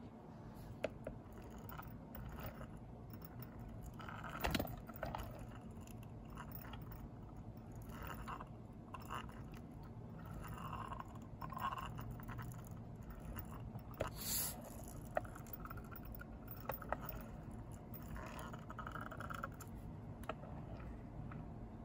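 Faint handling noises of a die-cast toy street sweeper being pushed along a hard surface: light scraping from its wheels and small rolling bristle brush, with scattered small clicks. There is a sharper knock about four and a half seconds in and another around fourteen seconds.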